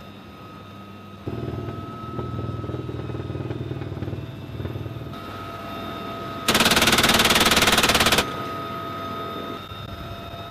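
Helicopter door-mounted machine guns firing from the cabin: a sustained run of rapid fire for about four seconds, then after a short pause a much louder, very fast burst lasting under two seconds. Under it runs a steady high whine from the helicopter's turbine and rotor.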